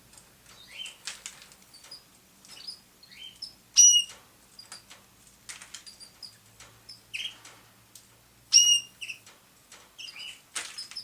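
Canaries chirping: a run of short, high chirps, with two loud, clear calls about four seconds and eight and a half seconds in.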